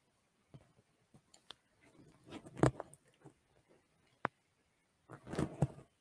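A person taking a drink from a cup: a few soft clicks, then sipping and swallowing sounds in two short clusters, about two and a half seconds in and again near the end, with one sharp little knock between them.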